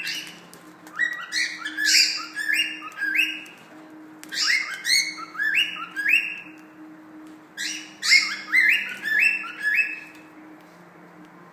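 Cockatiel chirping in three runs of quick, rising chirps, four to six calls to a run, with a faint steady hum behind.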